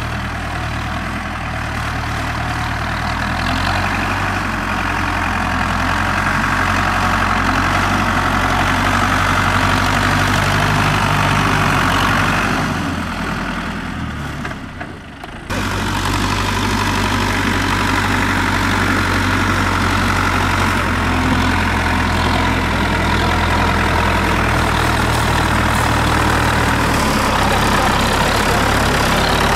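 Zetor tractor diesel engine running steadily as the tractor drives slowly. About halfway through the sound fades briefly and then cuts abruptly to another tractor engine of the same kind running steadily.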